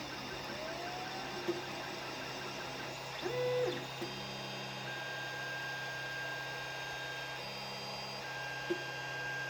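Creality Ender 5 Plus 3D printer running a print. Its stepper motors whine in steady tones that jump to new pitches every few seconds as the print head changes moves, over a steady low hum, with a brief louder note about three seconds in and a couple of small clicks.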